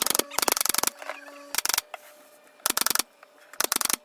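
A power tool hammering rapidly in five short bursts, each a quarter to half a second long.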